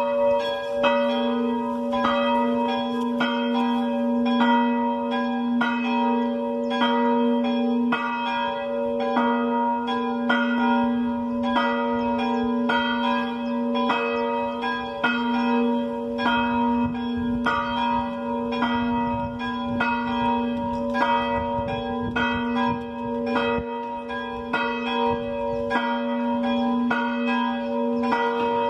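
Two church bells, tuned to G and B-flat, swinging and ringing together in a full peal. The strokes come about once a second and overlap into a continuous hum.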